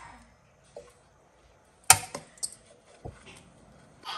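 A metal spoon knocking against dishes while serving food from a steel pot: one sharp clink about two seconds in and a few fainter taps around it.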